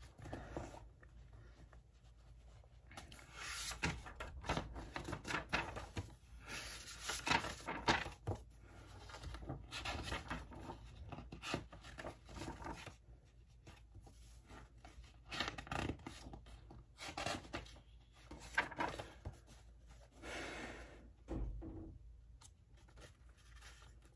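Pages of a thick paperback book being leafed through: an irregular run of short, papery swishes and flutters.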